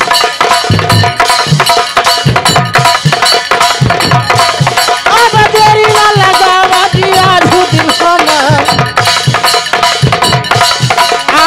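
Instrumental folk music: a held, droning melody line over a steady, quick drum rhythm, with a few sliding melody notes in the middle.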